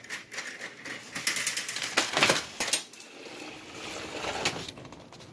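A quick run of light clicks and clattering knocks for about three seconds, then softer rustling.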